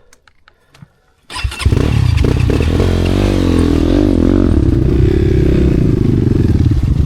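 Motorcycle engine started after a few faint clicks, about a second in. It then runs loudly, its pitch rising and dipping with the throttle.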